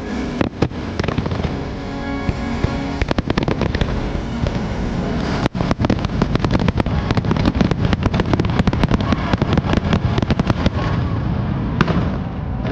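Fireworks finale: a dense barrage of bangs and crackles, a few shots at first, then many a second from about three seconds in, thinning out near the end, with the show's music soundtrack playing underneath.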